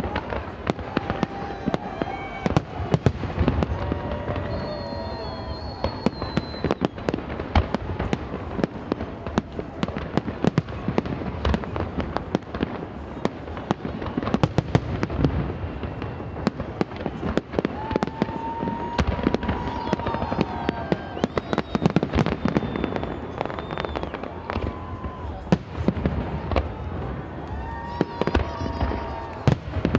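Aerial fireworks display: shells bursting in a dense, irregular barrage of bangs and crackles, many overlapping, with no let-up.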